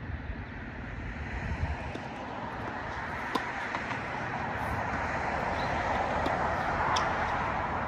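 A passing vehicle: a steady rush of road noise that slowly grows louder and peaks near the end, with a couple of faint clicks.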